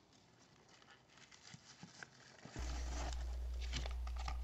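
Faint rustling and light clicks of a plastic blister-packed die-cast toy car being handled and pulled out from tissue paper in a cardboard box. A steady low hum comes in about two and a half seconds in.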